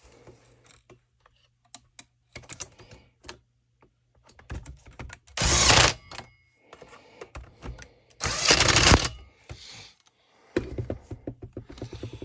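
Small parts of a Stihl FS 45 string trimmer clicking and tapping as it is put back together after a coil replacement. Two loud rushing bursts, each under a second long, come about five and eight seconds in.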